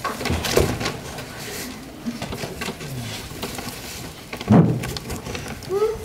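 Rustling and scattered knocks as a painted puppet stage is handled: fabric curtains are taken down and its side panels are unfolded. There is a louder thump about four and a half seconds in.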